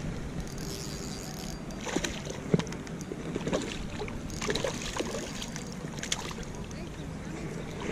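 A hooked trout splashing at the water's surface as it is reeled in on a spinning rod, with several sharp splashes from about two seconds in, the loudest near the middle.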